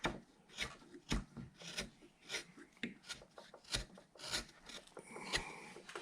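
A hand carving tool shaving wood in a series of short slicing cuts, roughly two a second and irregular, as a bandsaw-cut figure is roughed out.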